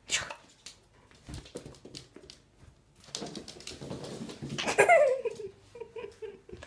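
Puppy at play: scuffling and scattered clicks, then about five seconds in a loud cry that falls in pitch, followed by a short steady whine.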